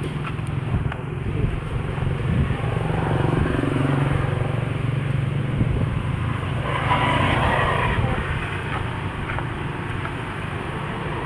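Steady low rumble of motor vehicle noise in the background, with a brief higher-pitched sound about seven seconds in.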